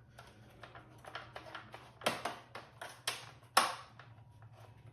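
Hard plastic clicks and ticks of the Asus ROG G20CB desktop's case panel being handled and pushed into place: a run of light ticks with a few sharper clicks, the loudest about three and a half seconds in.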